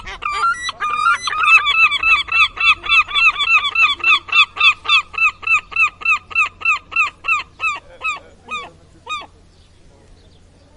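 Gull calling: a long rapid series of repeated calls, about three a second, that slows and fades before stopping about nine seconds in.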